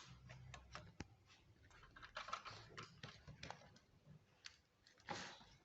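Faint scattered clicks and short light scrapes from hands handling the plastic parts of an opened laptop and its removed cooling fan.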